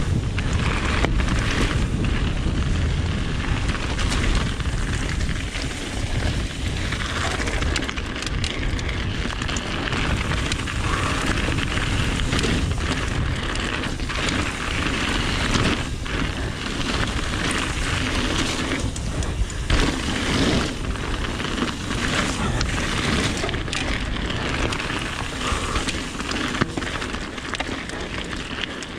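Mountain bike descending fast on a loose gravel trail: constant wind rumble on the microphone with tyre crunch on stones, and scattered knocks and rattles as the bike hits bumps.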